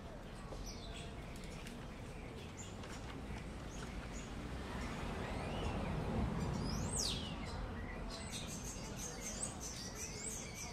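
City street ambience: small birds chirping in short high notes over a steady low traffic rumble, with the rumble swelling as a vehicle passes about halfway through.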